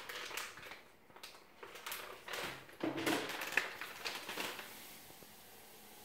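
Scattered light rustling and scraping of kitchen handling as dry semolina is measured out with a cup, quietening near the end.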